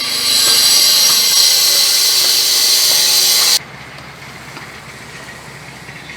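Loud, steady hissing rush from road-repair machinery or a power tool, cutting off sharply about three and a half seconds in. A quieter steady engine hum carries on after it.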